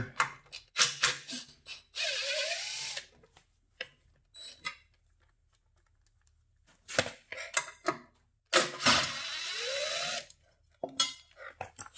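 Cordless drill backing screws out of the steel access cover on a mini excavator's track frame: two runs of the motor, about a second long and then about two seconds long, its pitch swinging up and down as it runs. Between the runs come clicks and clinks of the tool and screws being handled.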